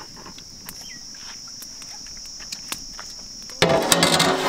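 Steady high-pitched insect chirring with a few faint clicks. About three and a half seconds in, loud music cuts in suddenly.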